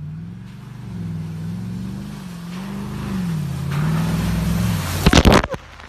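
Off-road SUV engine running under throttle as it approaches, its pitch rising and falling with the accelerator, then a loud, brief rush of splashing water about five seconds in as the SUV ploughs through a muddy puddle.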